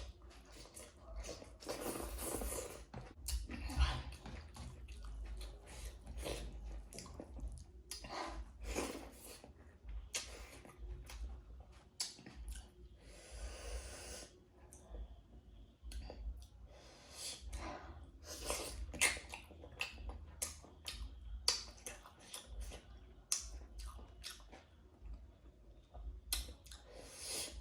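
Close-miked chewing and lip-smacking of a person eating pork with rice and greens, with many irregular wet mouth clicks.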